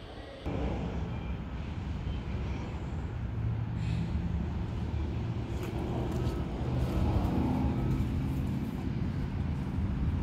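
Steady low mechanical drone and rumble outdoors, with a hum of several low tones, starting abruptly about half a second in.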